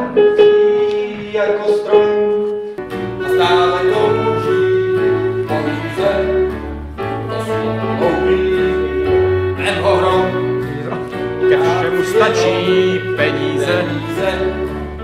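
Music with held melodic notes over a low bass line that comes in about three seconds in.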